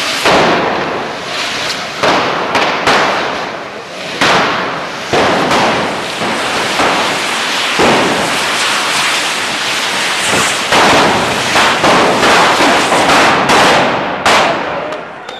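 Cordà fireworks: many hand-held cane rockets (canyes) hissing and fizzing at once as they spray sparks along the street, with frequent sharp bangs at irregular intervals.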